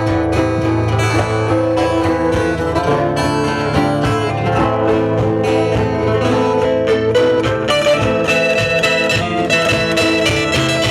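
Instrumental music led by plucked acoustic guitars, with a sustained bowed fiddle line coming in near the end.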